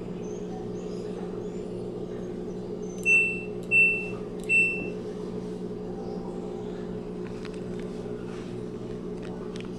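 Three short electronic beeps from an LG WM3050CW front-load washer's control panel as its cycle dial is turned, about two-thirds of a second apart, over a steady low hum.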